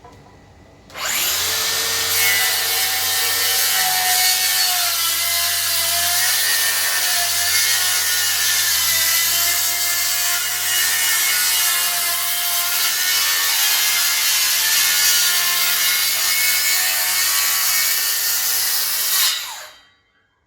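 DeWalt DCS578 60V FlexVolt brushless cordless circular saw cutting through wood in one long, steady cut. It starts suddenly about a second in, the motor's pitch wavers slightly under load, and it stops abruptly near the end.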